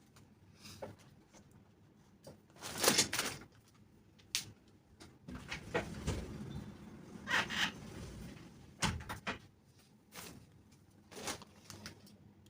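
Scattered clicks, light knocks and rustling from small objects being handled on a work surface, with a louder scrape about three seconds in.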